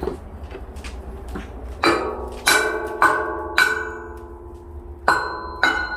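Hammer striking steel six times, each blow ringing out at several pitches: four blows about half a second apart starting about two seconds in, then a pause and two more near the end.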